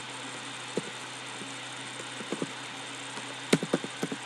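Computer keyboard keystrokes: a few single key taps, then a quick run of taps about three and a half seconds in, over a steady hum of a computer fan.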